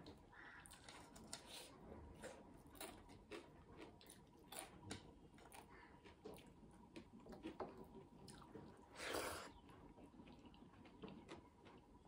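Faint chewing and small mouth and finger sounds of rice and curry being eaten by hand, with scattered soft clicks and one louder noise about nine seconds in.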